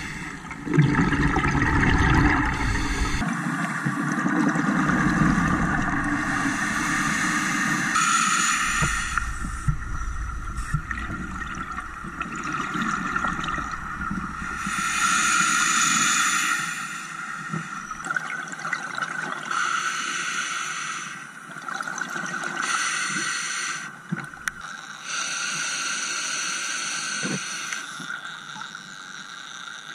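Scuba diver's exhaled bubbles gurgling and rising, with the hiss of the regulator, heard underwater through a camera housing. Several louder bubble swells come every few seconds.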